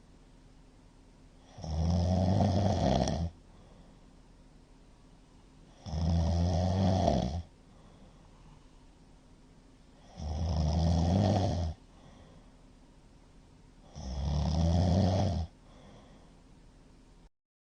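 A middle-aged man snoring loudly in deep sleep, which he puts down to having drunk too much. Four long snores come at a steady pace, one about every four seconds. The recording drops out briefly at the very end.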